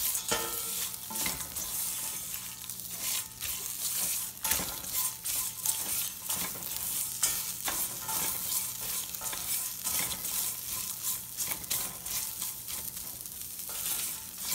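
Bitter gourd slices sizzling in a stainless steel pan on medium heat while a spatula stirs and scrapes them, frequent short scrapes and clicks over a steady sizzle.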